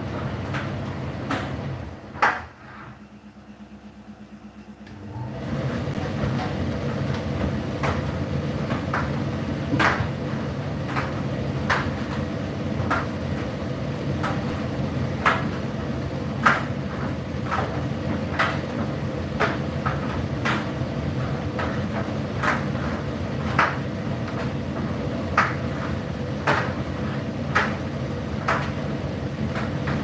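Indesit IDC8T3 8 kg condenser tumble dryer running, its drum tumbling a load with a steady hum and scattered clicks and knocks from the clothes turning. About two seconds in there is a loud click and the motor stops for about three seconds, then it starts again and carries on tumbling.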